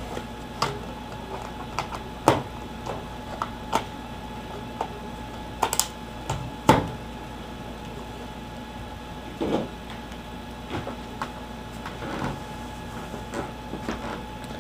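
Scattered plastic clicks and knocks of a netbook being handled on a desk: the battery pack fitted back into its bay, the machine turned over and its lid opened. A faint steady hum runs underneath.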